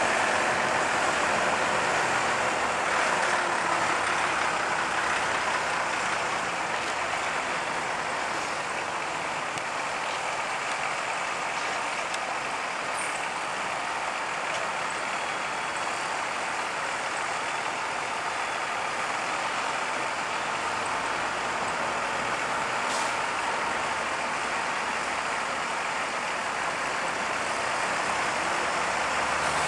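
Steady engine and road noise of AEC Routemaster double-decker buses driving past one after another.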